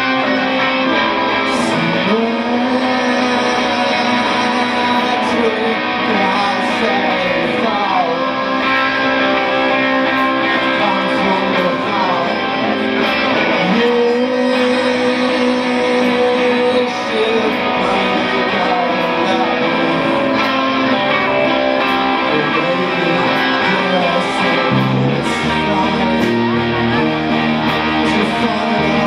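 Live rock band playing an instrumental passage at full volume: electric guitars hold and bend notes over drums and bass, with the bass line growing heavier near the end.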